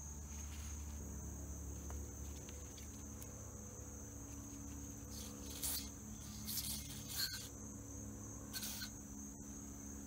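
Steady, high-pitched trill of insects, with a faint low hum beneath it. In the second half come a few short rustles and a click as hands handle paper towels and small metal parts.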